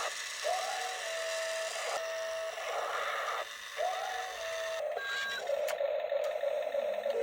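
Electronic sound effects from a toy RC forklift's small built-in speaker: a short tone that rises and then holds, followed by a buzzy burst, repeating about every three seconds.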